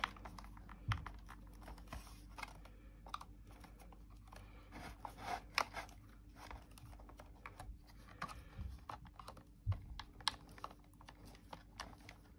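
Faint, irregular small clicks and scratches of a screwdriver working the tiny screws of a model car's door sill, with the parts handled and a couple of louder knocks, about a second in and near the end.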